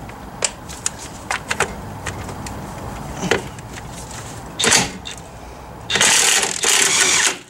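Clicks and knocks of a socket being set on a bolt, then a DeWalt XR cordless impact wrench hammering in two bursts, about a second and a half in all near the end, as it breaks loose the lower shock absorber bolt.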